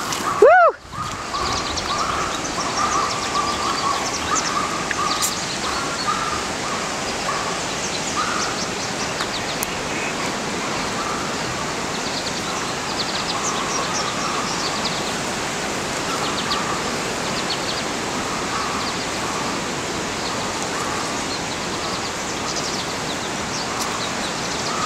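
Open-field ambience: a steady rushing noise with birds calling, and one short, loud call that rises and falls in pitch about half a second in.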